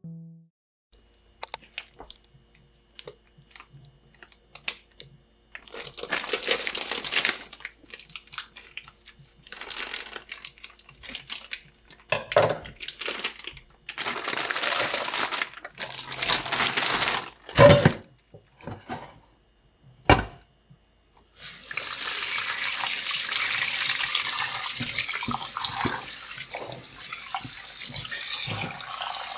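Kitchen tap water running into a sink in several short bursts, with a few sharp knocks and clatters between them, then running steadily for the last third.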